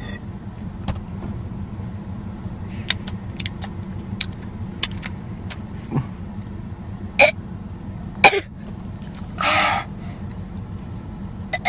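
A girl taking small sips of root beer from a bottle and swallowing: two short, sharp gulps about a second apart midway, then a brief breathy exhale, over a steady low hum.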